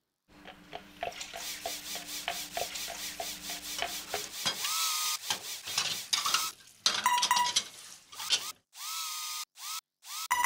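Quick scrubbing strokes, about four a second, over a steady low whir: a cloth wiping a kitchen counter. About four seconds in, they give way to a run of short electronic beeps and chirps with sudden cuts to silence.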